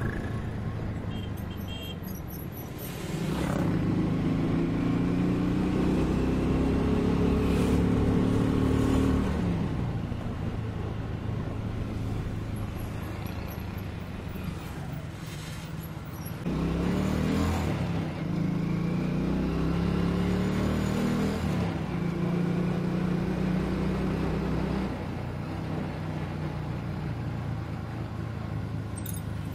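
Vehicle engine running on the road, with steady road noise. The engine pulls louder twice, from about three seconds in and again from about sixteen seconds in, its pitch slowly rising each time before it eases off.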